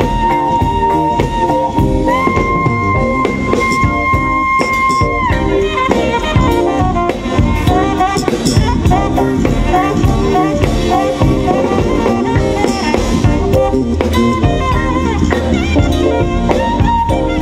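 Live jazz band: a saxophone holds a long high note, steps up to a higher note held for about three seconds, then breaks into fast runs, over a drum kit and electric bass.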